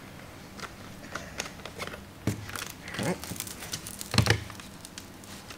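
Plastic gallon jug of white vinegar being handled and its cap worked open: crinkling and crackling of plastic, with a few knocks, the loudest a little after four seconds in.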